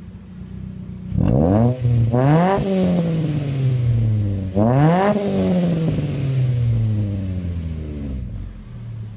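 Mitsubishi Lancer GT exhaust as the engine is revved from idle: two quick revs about a second in, the pitch sinking slowly, then another sharp rev about four and a half seconds in that falls away gradually and settles back to a steady idle near the end.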